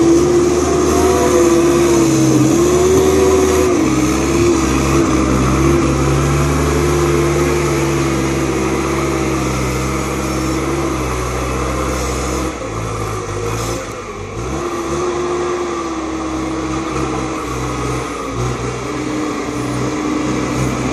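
Merlo telehandler's diesel engine working under load as it drives up a silage clamp, with a whine that wavers in pitch over the engine note. The engine eases off about 13 seconds in, then picks up again.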